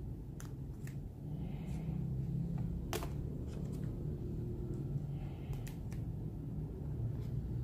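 Plastic sheet-protector pages in a ring binder being turned by hand: soft rustles and light clicks of the plastic, with a sharper click about three seconds in, over a steady low hum.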